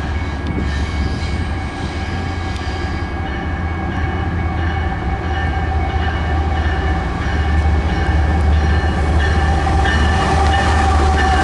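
Union Pacific GE ES44AC diesel locomotive with its 12-cylinder GEVO engine approaching and drawing alongside at the head of a freight train. A steady low engine drone runs with a held whine above it, growing louder in the last few seconds as the locomotive comes abreast.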